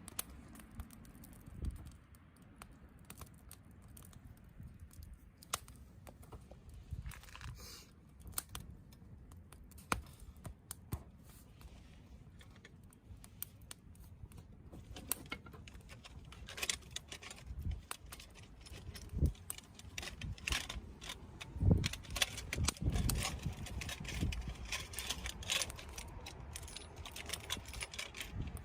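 Wood campfire crackling, with irregular sharp pops and snaps that grow denser and louder in the second half, and a few duller knocks from the burning wood.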